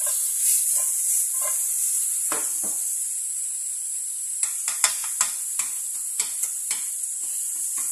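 Sliced onions sizzling in a little oil in a non-stick frying pan, a steady high hiss as they start to brown. The pan is shaken near the start, and from about halfway a spatula stirs them with a run of sharp taps and scrapes against the pan, about two a second.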